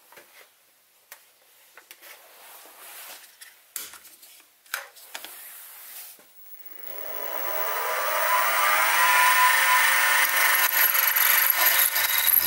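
A few faint clicks and knocks, then the Sieg SX2P mini-mill's spindle starts about seven seconds in. Its whine rises in pitch for about two seconds, then runs steadily at speed with a drill bit in the chuck, ready to drill holes.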